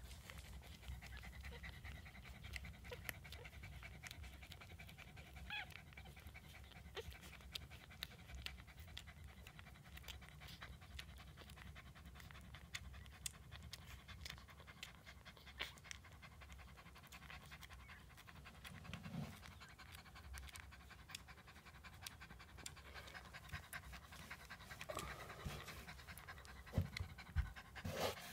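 Shih Tzu mother dog panting steadily and faintly while her newborn puppies nurse, with many small wet clicks of suckling. A few louder knocks come near the end.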